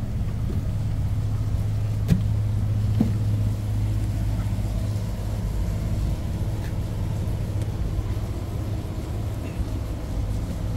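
Steady low drone of a ship's running machinery, with two short knocks about two and three seconds in.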